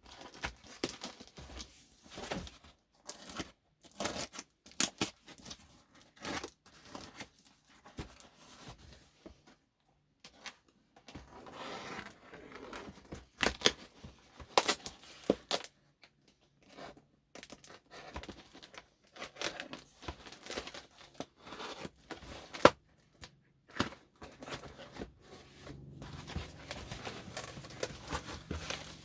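A parcel being unpacked by hand: tape and paper tearing and packaging crinkling in irregular bursts with short pauses. Near the end a low aircraft engine drone starts to build, from a Spitfire flying over.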